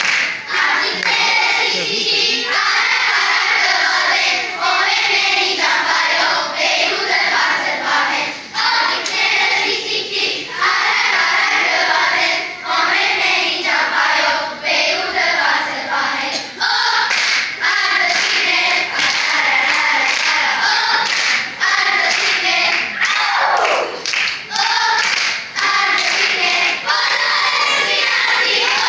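A large group of children singing together, accompanied by hand claps.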